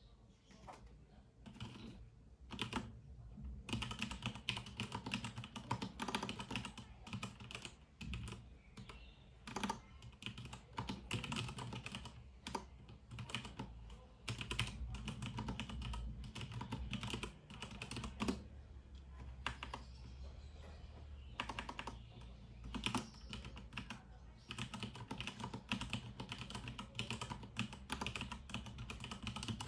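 Filco Minila Air mechanical keyboard with Brown switches being typed on: a few scattered keystrokes, then a steady, fast run of key presses from about two and a half seconds in.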